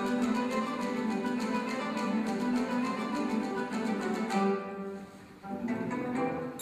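Guitar ensemble playing a fast piece of rapid plucked notes. The playing thins out and drops in level about five seconds in, then picks up again.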